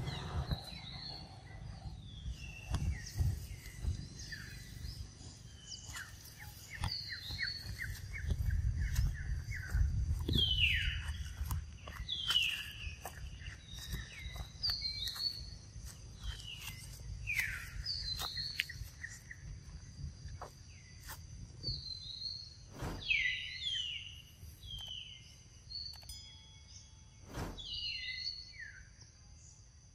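Birds calling again and again with short, falling chirps, over a faint steady high-pitched whine.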